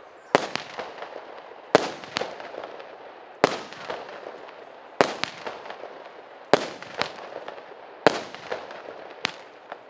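Russian Fireworks 'Russkiy Suvenir' P7220 19-shot 0.8-inch firework cake firing, a sharp bang about every one and a half seconds, several followed by a smaller pop about half a second later, with a fading hiss between shots.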